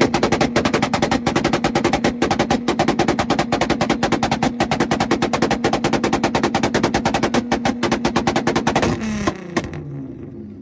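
Car engine held on a two-step rev limiter, firing a rapid, steady string of exhaust bangs and pops at constant revs; it cuts off about nine seconds in and the revs drop away.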